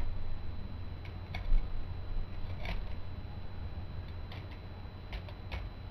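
K'nex plastic levers and linkages clicking and knocking as the machine's input levers are moved by hand: about six separate clicks spread out, with a dull knock about a second and a half in, over a steady low hum.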